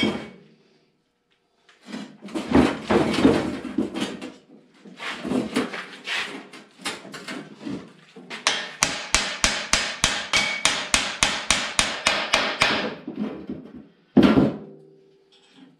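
Hammering on parts of a Belsaw M-14 sawmill husk being taken apart: scattered knocks and clatter, then a fast run of about twenty even blows, about five a second, and one heavy blow near the end.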